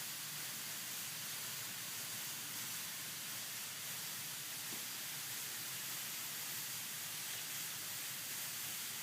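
A steady, even hiss like white noise, strongest in the high frequencies.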